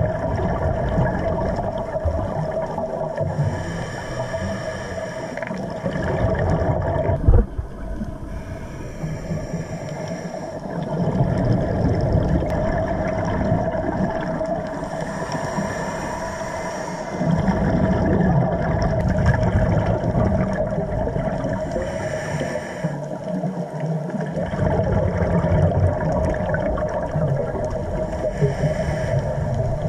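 Scuba regulator breathing underwater: a hissing inhale about every six seconds alternating with long bubbling exhalations, over a steady hum. One sharp knock comes about seven seconds in.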